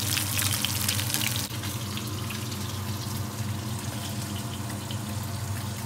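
Flour-dusted flatfish fillets frying in hot oil in a skillet: a dense crackling sizzle that drops abruptly about one and a half seconds in to a softer, steadier hiss, over a steady low hum.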